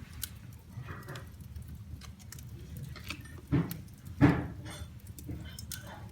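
Wood fire burning in a fireplace, with a steady low rush and scattered sharp crackles and pops. Two louder short sounds come about three and a half and four seconds in.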